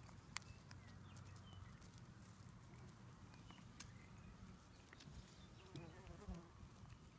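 Near silence: faint outdoor ambience with scattered small clicks and a brief faint wavering sound about six seconds in.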